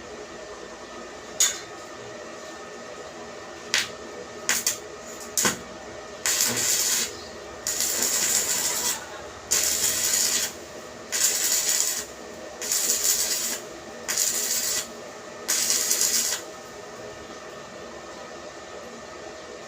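A few sharp knocks, then about eight rasping, scraping strokes, each about a second long, from a tool worked against a hard surface, over a steady machine hum.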